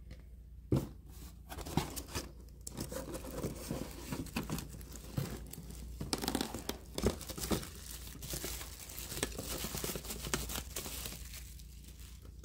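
Thin clear plastic bag crinkling and rustling as a plastic blender bottle is slid out of it and the bag is crumpled, a busy run of small crackles. A sharp knock about a second in, and another about seven seconds in.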